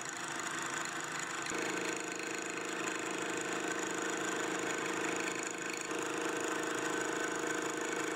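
Milling machine spindle running with a single-point fly cutter thread milling a metal rod turned in a chuck: a steady mechanical whir, joined about a second and a half in by a steady hum.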